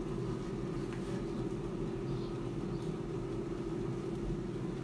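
Klarstein AeroVital air fryer running mid-cook, its fan giving a steady whirring hum.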